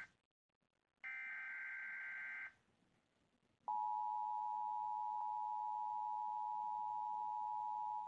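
Emergency Alert System test played through a TV: the end of one SAME header data burst, a second digital data burst about a second in, then, a little before halfway, the steady two-tone EAS attention signal (853 and 960 Hz) that holds on.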